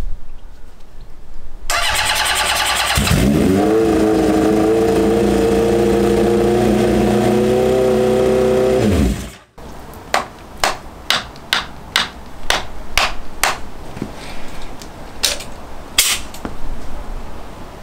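Honda CB750 SOHC inline-four engine cranked on the starter and catching about three seconds in. It runs steadily for about six seconds, the pitch rising slightly, then is shut off, winding down about nine seconds in. It is running on only two of its four cylinders, which the owner puts down to the carbs on that side. A series of about a dozen sharp clicks follows.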